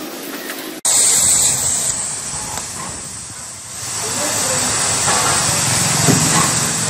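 Oxy-fuel cutting torch hissing steadily as it cuts through thick steel plate. The hiss starts abruptly less than a second in, after a quieter stretch of torch-cutting on steel pipe, and a low rumble builds under it from about four seconds in.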